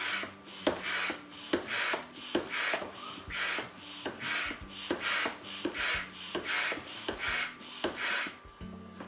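Hand pump of a Stuff-a-Loons balloon kit inflating a clear balloon in steady strokes: a short rushing puff of air with a click at the start of each stroke, about one every 0.8 seconds, ten or so in a row.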